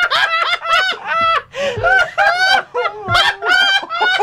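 Hard, high-pitched laughter from people watching a film, in quick repeated bursts.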